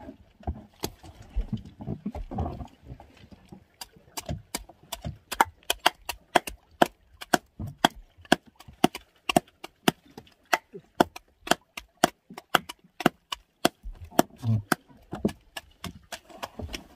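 Rapid, sharp wooden knocks, about two to three a second for some twelve seconds, as a hooked tuna is struck and handled against the side of a small fishing boat.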